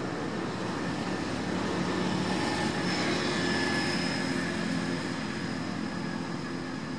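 A steady low background hum.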